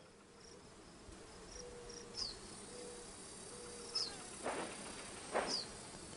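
Faint outdoor ambience: short high-pitched chirps, each dropping in pitch, repeating every second and a half or two over a faint steady high hiss, with two soft noises near the end.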